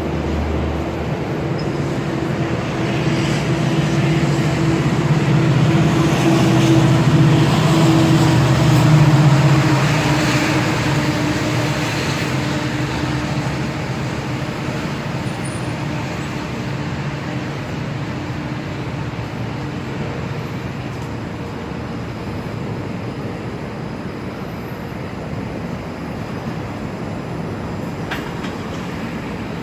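A Bombardier Flexity Outlook streetcar moving slowly past on its rails, its drive giving a low, steady hum. The sound grows louder to a peak about nine seconds in, then fades gradually as the streetcar moves off.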